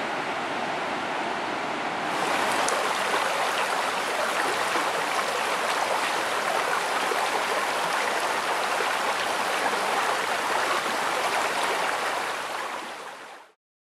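Rain-swollen stream rushing over stones and leaves, a steady noisy rush of water. It is fainter for about the first two seconds, then close and louder, and fades out near the end.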